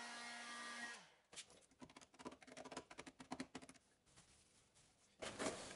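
Handheld electric heat gun running with a steady motor hum, aimed at door-jamb stickers to soften their adhesive. It is switched off about a second in and winds down. Faint clicks and scrapes of handling follow, and a louder rustle comes near the end.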